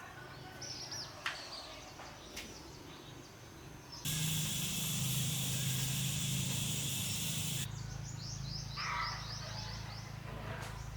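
Small birds chirping in short falling calls, with a loud steady high hiss cutting in abruptly about four seconds in and stopping just as abruptly a few seconds later, after which the chirping resumes.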